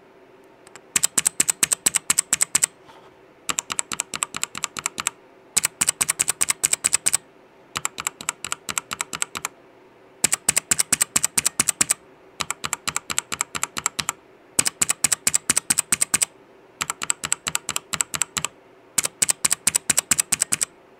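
Rampage Carbon mechanical keyboard keys tapped rapidly in about nine short bursts, each under two seconds. The bursts compare clicky blue switches, fitted on the WASD keys, with the keyboard's quieter linear red switches.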